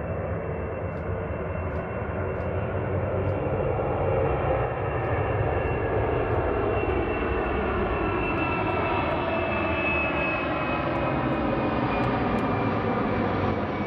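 Four turbofan engines of a C-17 Globemaster III running at takeoff power through the takeoff roll and climb-out: a loud, steady jet noise with a high whine that slowly falls in pitch.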